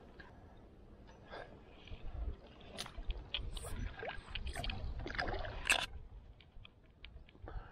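A hooked carp splashing and thrashing at the lake surface, a run of splashes through the middle of the clip with the biggest about six seconds in, over a low wind rumble.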